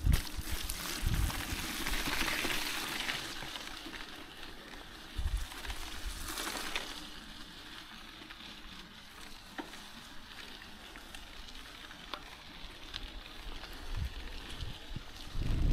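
Mountain bike tyres hissing through a muddy puddle and then rolling on wet gravel, loudest in the first few seconds and again briefly about halfway, then quieter with scattered small ticks of grit.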